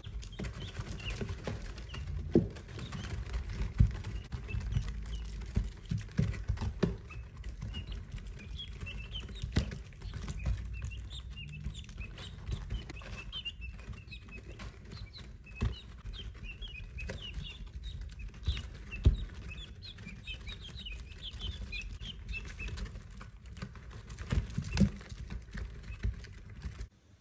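Small birds chirping over and over in short high calls, over a steady low rumble with scattered knocks.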